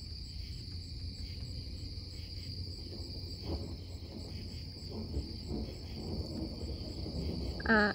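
Night insects calling in a steady, unbroken high-pitched trill, over a low steady background noise.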